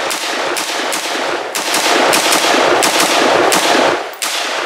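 Rapid semi-automatic fire from an HK G36 rifle in 5.56 NATO, about three shots a second, each crack running into echo. The firing stops about four seconds in.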